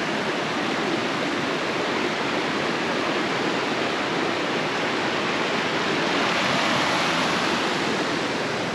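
River water rushing past in a strong, steady flow, swelling slightly a little past the middle.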